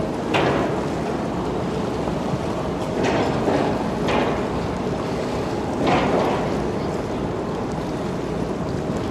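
Steady rumbling wash of the 1,013.5-foot lake freighter Paul R. Tregurtha passing close by, with water surging against the canal wall several times.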